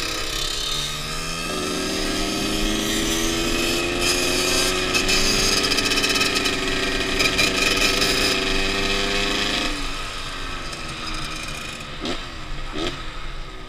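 Dirt bike engine pulling hard through a gear, its pitch climbing steadily for about eight seconds before the throttle is closed and it drops away, with wind rush on the rider's microphone. Two short revs come near the end.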